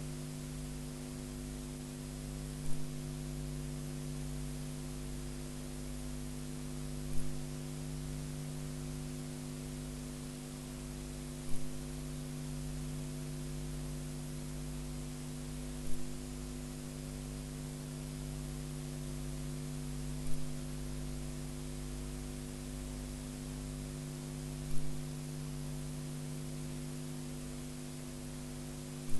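Steady electrical hum with a faint hiss, broken by a short click about every four and a half seconds.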